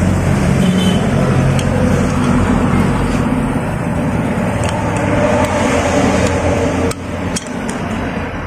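A running engine drones steadily in the background and drops in level about seven seconds in. Over it come a few light metal clicks and taps from a steel rod working the valve locks into a valve spring retainer on an aluminium cylinder head.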